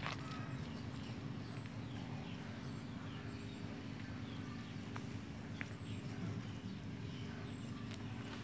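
Hands pressing and patting down loose, gravelly soil, giving faint soft crunches and an occasional small click of stones, over a steady low hum.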